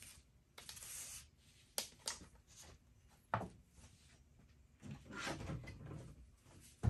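Light handling sounds on a workbench: a few sharp knocks and clicks, among them a CJRB Tigris folding knife being set down on a plywood board, and a rustle with a soft knock as a wooden stick is picked up near the end.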